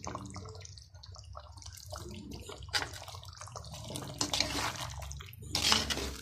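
Metal perforated spoon stirring thick chicken gravy in a pot: wet sloshing in three short strokes in the second half, the last the loudest, over a steady low hum.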